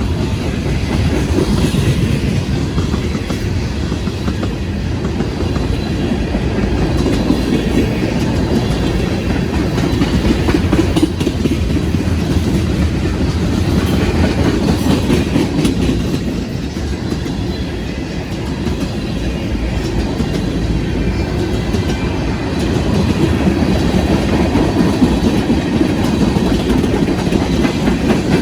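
Freight train cars rolling steadily past, a continuous low rumble with the clickety-clack of wheels over the rail joints.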